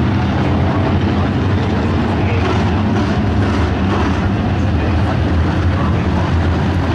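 A pack of dirt-track modified race cars running together, their V8 engines blending into one loud, steady drone.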